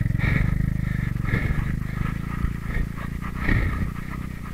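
Hero XPulse 200 4V's single-cylinder engine pulling away over loose sand and gravel, its pulsing note growing steadily fainter as the bike moves off.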